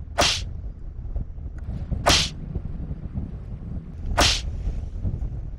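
Three short, sharp breathy bursts, about two seconds apart, from cats crowded at a food bowl, over a low rumble.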